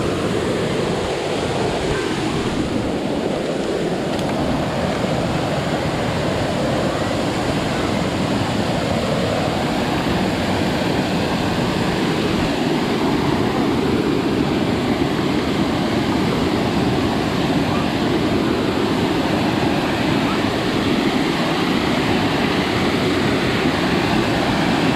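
Steady rushing noise that holds an even level throughout, with no distinct events.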